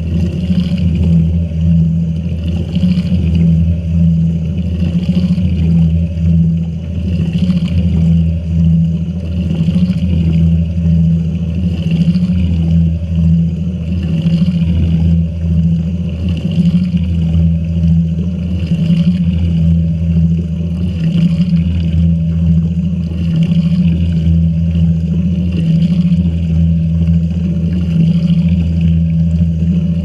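Shacklock (Fisher & Paykel) Gentle Annie washing machine running, heard from inside the tub: a steady low hum with water pouring and splashing into the load, swelling about once a second.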